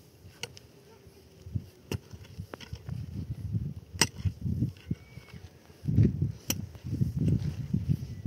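A long-handled mattock digging into soil: repeated dull thuds and scrapes of the blade in the earth, with a few sharp clicks. The strokes grow louder and more frequent from about halfway.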